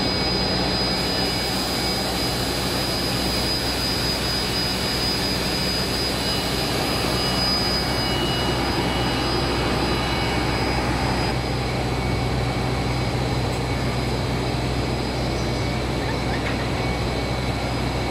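Blown-film extrusion line running at high speed: a steady, loud mechanical din with a low hum under it and a few thin, steady high whines over it.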